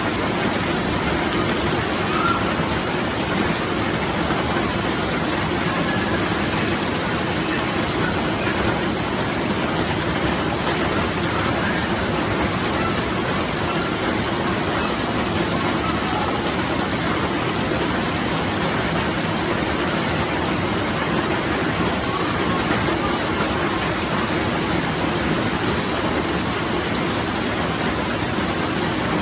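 Steady rain falling: a dense, even hiss that holds constant throughout.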